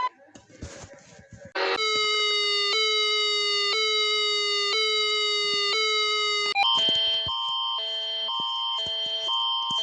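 Electronic emergency-alert alarm tones. After a short quiet gap, a buzzy tone sounds five times, about once a second, each one sliding slightly down in pitch. About two-thirds of the way through it switches to a higher two-tone alarm that alternates back and forth.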